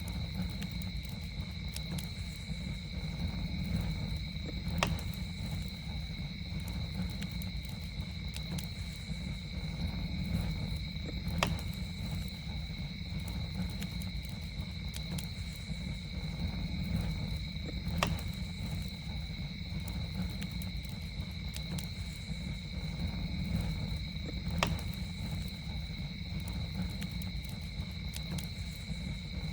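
Campfire burning with a steady low rumble and small crackles, and four sharp pops about six and a half seconds apart. A steady high two-tone whine runs unbroken behind it.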